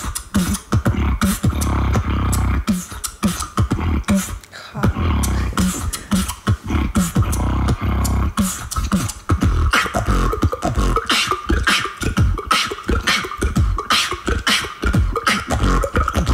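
Solo human beatboxing into a microphone: a steady beat of deep kick-drum thumps and sharp snare and hi-hat clicks made with the mouth. About ten seconds in, the high clicks grow faster and denser over a held tone.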